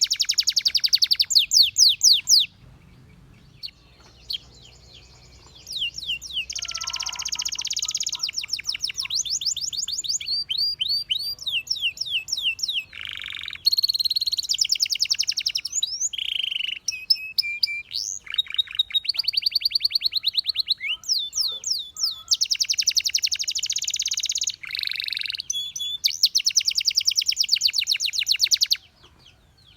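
Canary singing: long phrases of rapid trills and quick sweeping notes, with a pause of a few seconds near the start.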